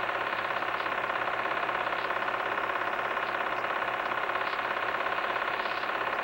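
Film projector running: a steady mechanical whirr with a fast, even flutter.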